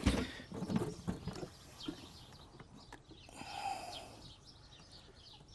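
Light knocks and clicks of hand tools working on an old tractor's hydraulic fill cover, bunched in the first second and a half, then a short scraping noise about three and a half seconds in.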